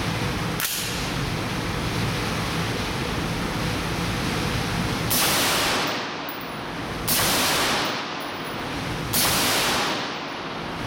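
Suppressed DPMS AR-15 in .223 with a Gemtech M402 suppressor fired slowly: three shots about two seconds apart, starting about five seconds in, each a sudden burst of noise lasting about a second. Steady background hiss throughout, with a faint click about half a second in.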